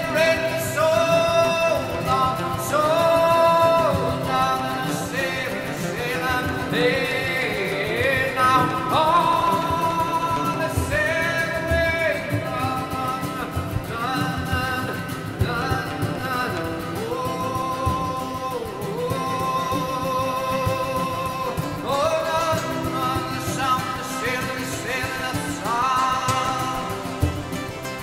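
A song: a singing voice carrying a slow melody of long, sliding notes over an instrumental accompaniment.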